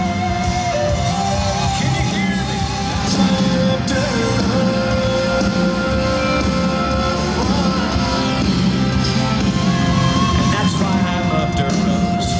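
Country-rock song from a band with electric guitars, a male voice holding long sung notes over the music.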